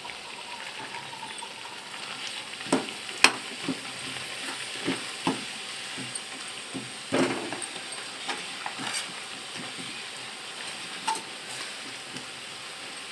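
Besan-coated peanuts sizzling as they deep-fry in hot oil in a kadai, stirred with a metal ladle that knocks sharply against the pan now and then, loudest about three seconds in.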